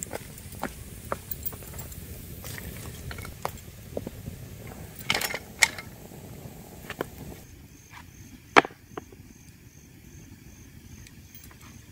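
Wood campfire of logs and branches burning, crackling with irregular sharp pops, a few of them loud.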